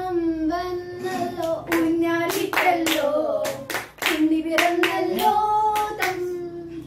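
A person singing a folk-style song in long, held notes, with hand claps keeping time at about three a second from about a second in.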